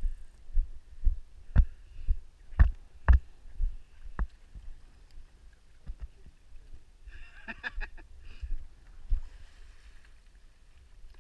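Footsteps on a concrete boat ramp, thudding about two a second for the first three seconds or so, then fewer and softer.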